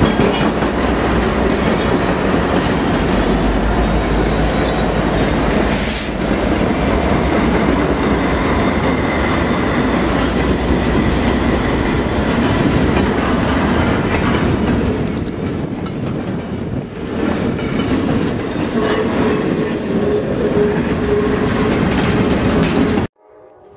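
Norfolk Southern freight train passing close by: the trailing diesel locomotives rumble past first, then double-stack container cars roll by with steady wheel noise and clickety-clack over the rail joints. The sound cuts off suddenly near the end.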